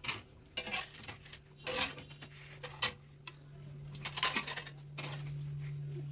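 Metal kitchenware clinking: a spoon and a small metal pot lid knocking against pans and the gas stove grate in a series of short, sharp clicks, busiest about four seconds in. A steady low hum comes up near the end.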